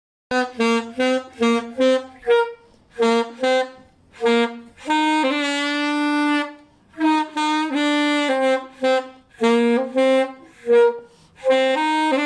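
Solo alto saxophone playing a melody: a run of short detached notes, then several long held notes from about five seconds in.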